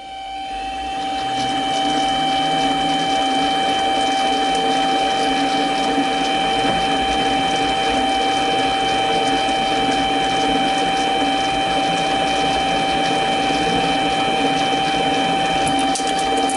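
Mini lathe motor spinning up over the first second or so, then running steadily with a high whine, while a spring parting tool cuts into the turning stock. The cut goes smoothly, with no jerking or grabbing.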